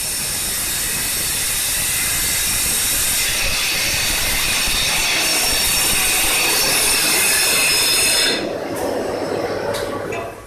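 Wall chaser cutting into a concrete wall: a loud, steady grinding screech with a high whine, growing slightly louder. It cuts off about eight seconds in, leaving quieter, lower rubbing and clatter.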